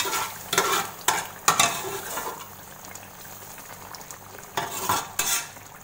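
A spoon scraping and knocking against a metal cooking pot in a handful of short strokes, as fried spinach paste is added to chicken gravy. Under the strokes the gravy bubbles and sizzles steadily on the heat.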